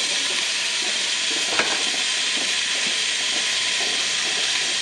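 Drained boiled potatoes and peas frying in a hot pan, a steady loud sizzle that starts suddenly as they go in, with one light knock about one and a half seconds in.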